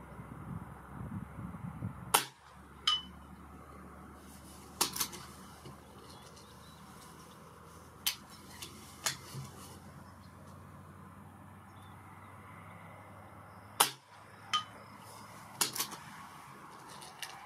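Two shots from a Reximex Throne Gen-2 PCP air rifle in .177. Each sharp crack is followed about three-quarters of a second later by a faint ringing ping, which fits the pellet striking a steel target at 100 m. Lighter clicks sound between and after the shots, and wind rumbles on the microphone in the first two seconds.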